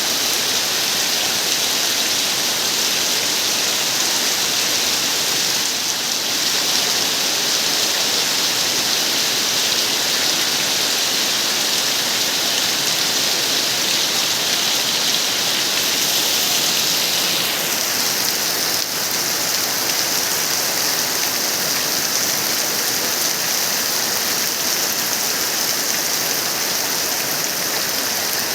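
Steady, heavy rain falling as an even hiss; its higher part eases slightly a little past halfway.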